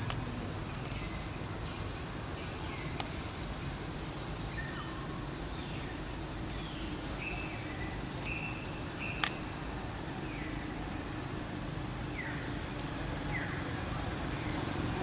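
Forest ambience: birds calling with short, high whistles that slide downward, repeated every second or so, with a few held notes near the middle, over a steady low background rumble. A single sharp click about nine seconds in.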